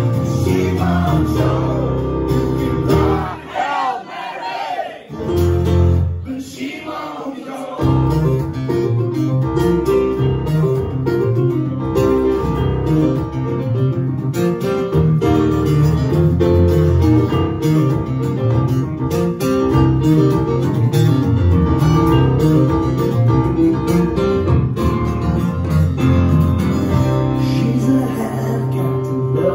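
Live acoustic guitar and stage piano playing a song together, with a man singing in the first several seconds; after that the guitar and piano carry on without the voice.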